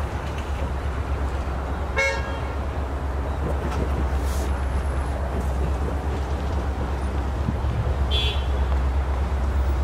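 A short car horn toot about two seconds in, over a steady low rumble of street traffic; a brief high chirp sounds near the end.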